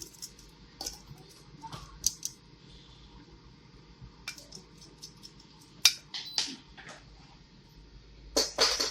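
Scattered sharp clicks and clinks of kitchen handling, like utensils and dishes knocking together, a few seconds apart with a denser cluster near the end, over a faint steady hum.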